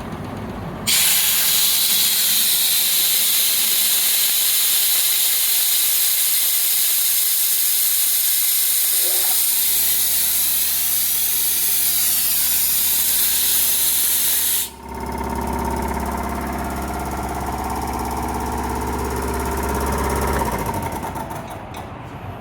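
Compressed air blowing off from the Anest Iwata TPD22-10 reciprocating air compressor with a loud steady hiss that starts about a second in and cuts off sharply about 15 seconds in. About 9 seconds in, the compressor's motor and pump start with a low steady hum. They keep running after the hiss stops, and the sound dies away near the end.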